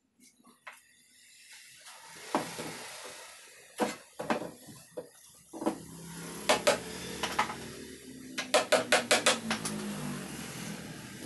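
Hand tools knocking and clinking on a wooden table frame: scattered sharp metallic taps, then a quick run of about eight taps near the end, over a steady low hum.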